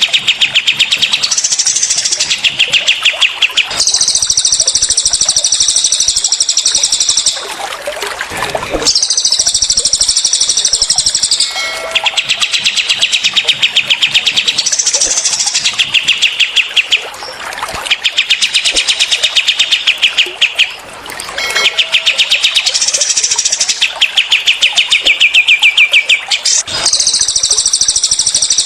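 Recorded song of cililin and kapas tembak birds: a run of fast rattling trills, the 'tembakan' (shots) prized in songbird training. The bursts last one to four seconds each and alternate between a higher-pitched and a lower-pitched rattle, with short breaks between them.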